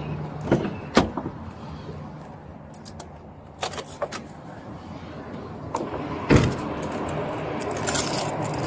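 A car door is opened with a latch click about a second in, things are handled inside, and the door is shut with a thud a little past six seconds, the loudest sound. Keys or metal gear jingle near the end, over a steady low hum.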